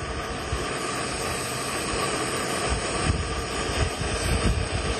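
Mini pocket canister stove burning on high under a lidded pot, a steady hiss of gas flame, with wind buffeting the microphone in uneven low gusts.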